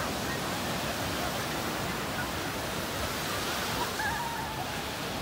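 Small waves breaking and washing on a sandy beach, a steady rush of surf, with the faint voices of many bathers calling and talking over it.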